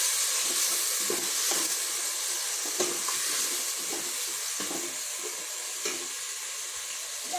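Onion and tomato masala sizzling in hot ghee in a pan, with a spoon stirring and scraping it in repeated short strokes.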